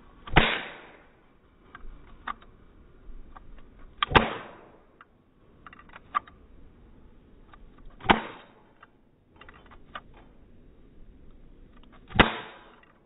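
Toy cap gun revolver firing caps: four sharp bangs about four seconds apart, with fainter clicks between them. The cheap caps flare, spraying sparks and flame from the cylinder.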